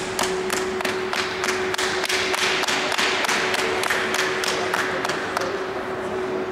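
An audience clapping in unison, about three claps a second, the clapping swelling in the middle, with a steady tone humming underneath.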